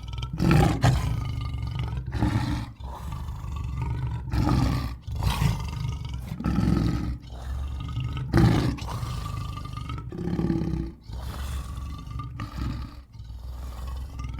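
Giganotosaurus sound effect built from lion roars: a run of about eight deep roars, one after another with short breaks, over a steady low rumble.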